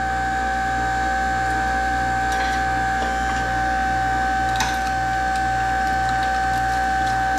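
Electric hydraulic pump running steadily with a constant whine over a low, slowly pulsing hum, driving a homemade puller that draws the copper windings out of a compressor motor's field housing. A few light clicks and a small knock come about four and a half seconds in.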